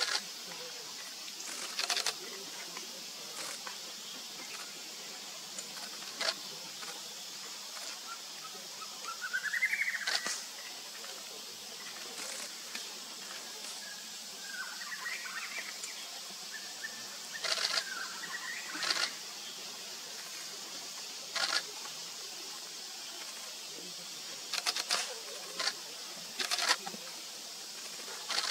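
Outdoor woodland ambience: a steady high hiss with sharp clicks every few seconds, the loudest sounds, and two faint bird calls that rise and fall in pitch, one about a third of the way in and one past the middle.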